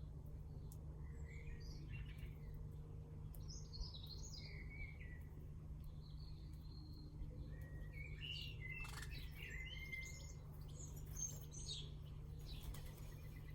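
Garden birds singing in several short bursts of quick chirps and warbling notes, the busiest stretch about two thirds of the way through. A steady low hum runs underneath.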